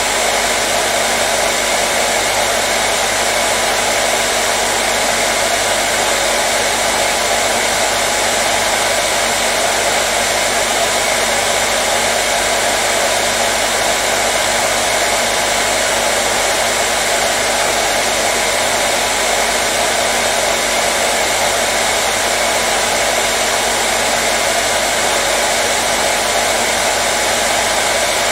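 Hair dryer running continuously at a steady speed: an even, unchanging whooshing blow of air with a faint motor hum underneath.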